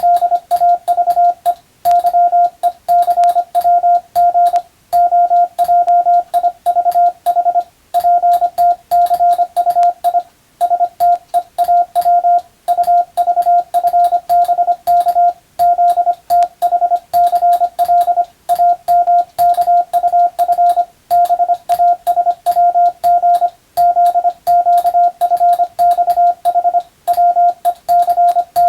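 Morse code (CW) practice tone: a single steady-pitched beep keyed rapidly into dots and dashes. Short pauses come every two to three seconds between code groups, as sent for radiotelegraph receiving practice.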